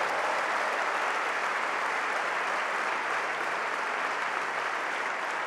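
Large seated audience applauding steadily, a dense wash of clapping that eases off slightly near the end.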